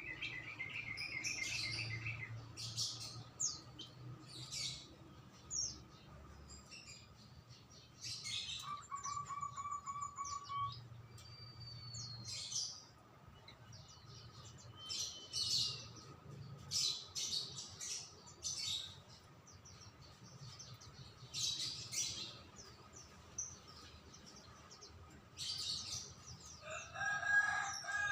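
Several songbirds chirping and calling, with short trills and a rising whistle among the rapid high chirps. A short, lower call is heard near the end.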